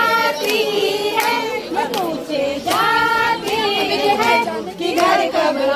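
A group of voices singing together, with hand claps scattered through it.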